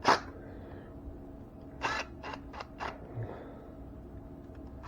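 Light mechanical clicks and taps of hand tools and receptacle hardware being handled: one near the start, then four in quick succession about two seconds in, over a faint steady hum.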